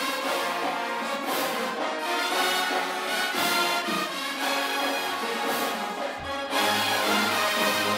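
High school marching band playing loud, brass-led music, with a few sharp hits; a low bass note comes in about six and a half seconds in.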